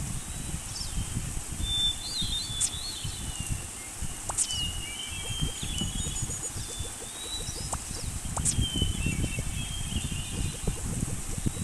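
Birds calling in short, high chirping phrases that recur every few seconds, over a steady low rumble with small irregular crackles.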